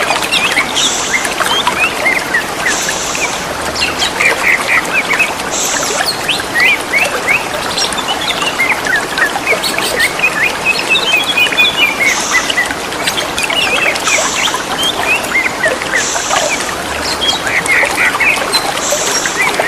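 Green leafbirds (cucak ijo) singing and answering each other in a rapid run of short, varied whistles and chirps, over a steady rush of trickling water. A short high buzzing sound recurs every couple of seconds.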